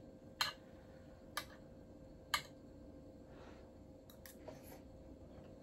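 Spoon clicking lightly against a ceramic plate while eating: about five short, sharp clicks spaced roughly a second apart, over a faint steady hum.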